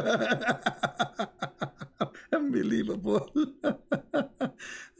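A man laughing in quick, breathy bursts.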